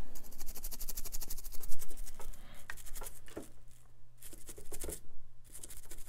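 Light scratching and a quick run of fine clicks from small hand tools working on a laptop logic board's RAM slot, with a few sharper ticks, the loudest about two seconds in.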